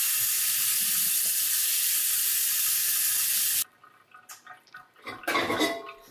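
Kitchen tap running cold water over cooked rice vermicelli noodles in a stainless-steel mesh colander, a steady rush that cuts off suddenly about three and a half seconds in. A few faint knocks and a short louder handling sound follow.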